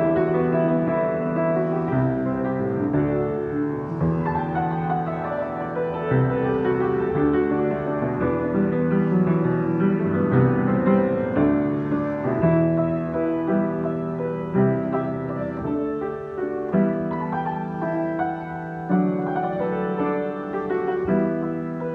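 Solo piano improvisation: held chords changing every second or so, with quick falling runs about four seconds in and again later on.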